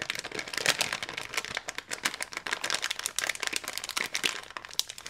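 Crinkling and crackling of a cleaning wipe and its wrapper being handled: a dense run of small crackles that eases off near the end.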